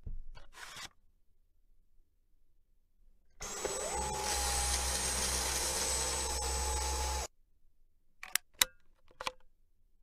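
Dyson V10 cordless stick vacuum's digital motor spinning up with a rising whine about three and a half seconds in, running steadily with a high whine for about four seconds, then cutting off suddenly. A few sharp clicks follow near the end.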